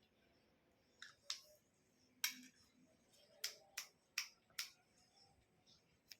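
A series of faint, sharp plastic clicks, about eight spread irregularly across a few seconds: a syringe and injection supplies being handled.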